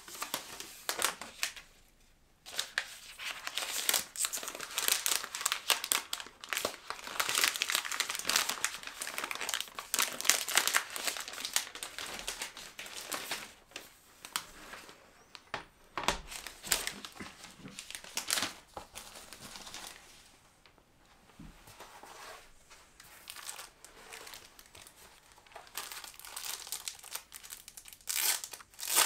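Thin plastic film and packaging of a glass screen protector crinkling and rustling in the hands, in dense, rapid crackles. The handling dies down about two-thirds of the way through and picks up again near the end.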